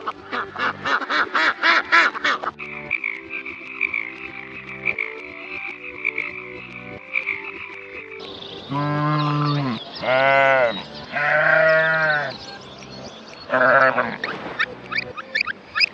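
Farm animal calls: a fast run of short, croaking calls at first, then three long calls that rise and fall, each about a second, and a shorter one near the end, over steady background sounds.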